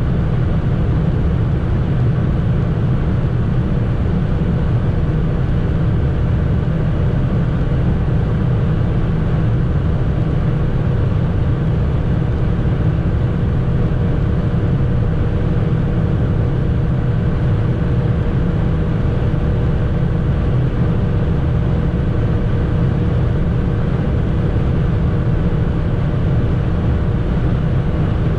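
Fiat Panda driving at motorway speed: a steady drone of engine, tyre and wind noise, with a faint steady hum running through it.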